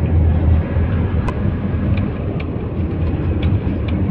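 Steady low rumble of an air-conditioned bus's engine and road noise, heard inside the moving bus, with scattered light ticks and one sharper click about a second in.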